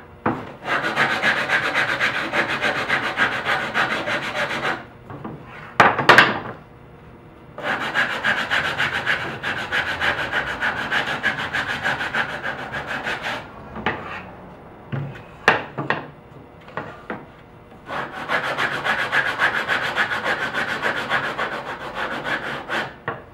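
Hand sanding block rubbed rapidly back and forth over the corners of a wooden frame, rounding them off. It comes in three long bouts, with a few short knocks in the pauses between them.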